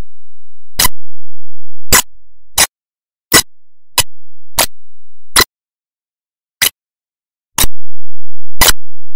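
About ten sharp clicks at irregular intervals with silence between: digital glitches in an otherwise empty soundtrack.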